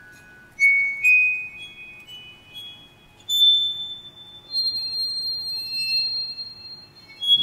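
Solo glockenspiel: single high metal-bar notes struck one at a time and left ringing, about five or six notes in a slow, sparse line, with the last one held for a couple of seconds.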